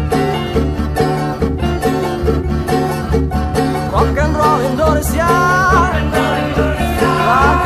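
Live band playing an upbeat rock 'n' roll tune on electric bass guitar, acoustic guitar and drums, over a steady pulsing bass line. A high melody line with a wavering pitch comes in about four seconds in.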